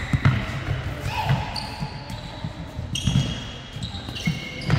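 A ball thumping repeatedly on a hard indoor court floor during a youth team game, with several short, high squeaks of sneakers on the floor.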